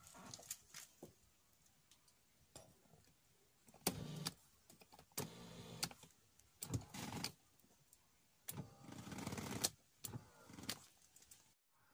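Electric seat adjustment motors of a 2008 SsangYong Rexton's power front seat running in about four short runs of half a second to a second each, with clicks of the seat switches in between.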